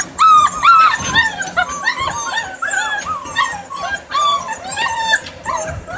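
Several six-week-old puppies whining and yipping, with many short high-pitched cries overlapping several times a second.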